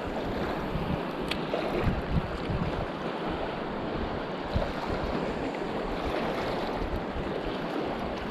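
Wind buffeting the microphone over shallow sea water washing across a reef flat, steady throughout, with one light tick about a second in.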